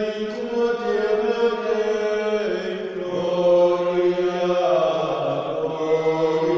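Slow liturgical chant-like singing in long held notes, the pitch stepping to a new note every second or two.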